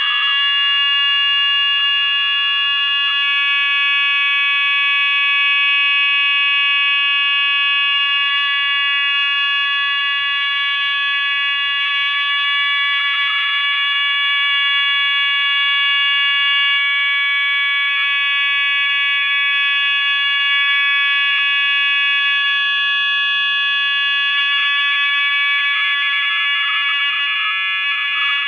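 A loud, steady electronic drone of several high pitches held together, buzzing like an alarm and unchanging throughout, over a faint low hum.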